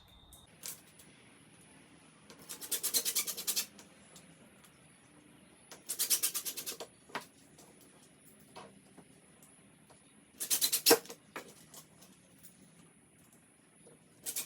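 Screws being driven with a Phillips bit to fasten casters to a plywood base: three short bursts of rapid clicking a few seconds apart, with a fourth starting at the end.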